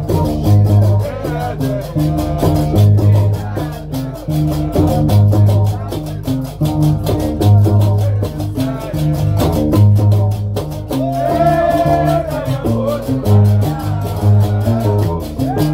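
Gnawa music: a guembri plucked in a repeating low bass line, with qraqeb iron castanets clacking in a fast, even rhythm. A voice sings briefly about eleven seconds in.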